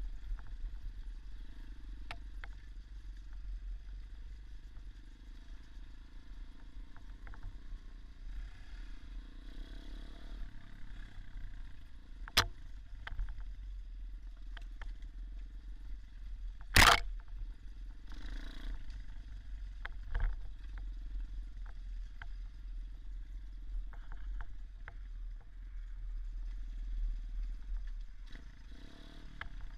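Dirt bike engine running low and steady, heard as a rumble from an action camera, with a few sharp knocks. The loudest knock comes about two-thirds of the way in.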